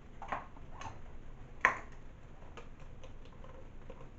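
A handful of light clicks and taps from a utensil and a plastic blender cup being handled, spaced irregularly, with one sharper click about one and a half seconds in.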